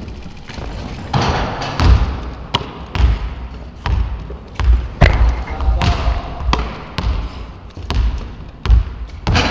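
Basketballs bouncing on a wooden gym floor, about ten sharp thuds at uneven intervals, over a steady rustling hiss.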